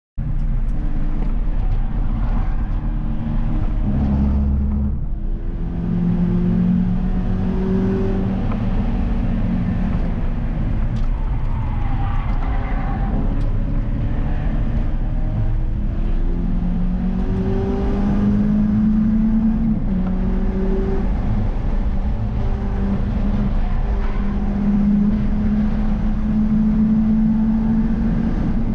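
Peugeot 306 GTi6's 2.0-litre four-cylinder engine heard from inside its stripped-out cabin, accelerating hard on track, its note climbing through the revs again and again as it pulls through the gears, over steady road and wind noise.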